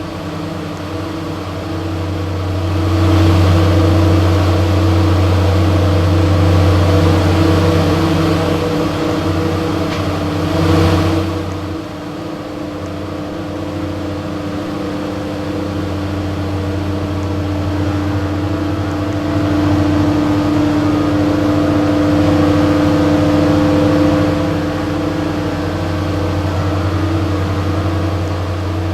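Air conditioner running: a steady motor hum under a whirring rush of air, growing louder about three seconds in and swelling briefly around ten seconds.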